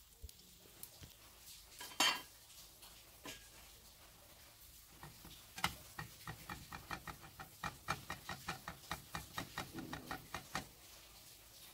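Metal spatula knocking against a nonstick frying pan while working a pancake: one sharp clack about two seconds in, then a run of quick light taps, about four a second, through the second half.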